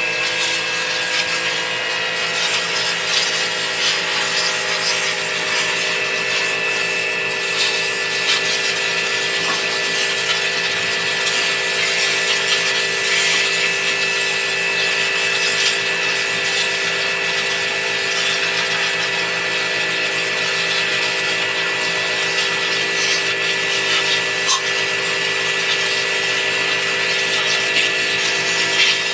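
Pressure washer running steadily: a constant motor-and-pump hum with several steady tones, under the hiss of the water jet spraying.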